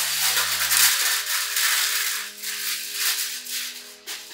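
Clear plastic wrapping crinkling as it is pulled and torn off a gift, over background music.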